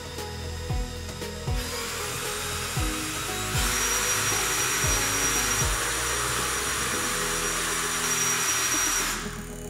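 Cordless drill motor driving a bicycle's rear wheel. It starts about one and a half seconds in, grows louder with a steady high whine about two seconds later, and cuts off near the end. Background music with a beat plays throughout.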